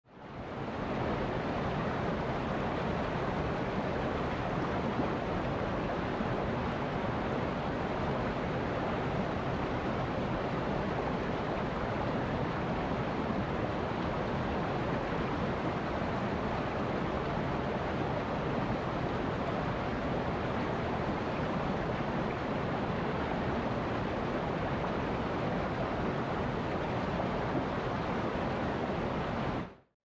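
Mountain stream rushing over rocks in small rapids, a steady rush of water that fades in at the start and out at the very end.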